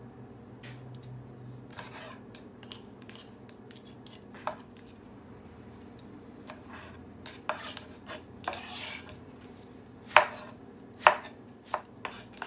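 Kitchen knife slicing tomato on a round wooden cutting board, the blade knocking on the wood. Scattered light taps give way to a run of knocks, the two loudest about ten and eleven seconds in.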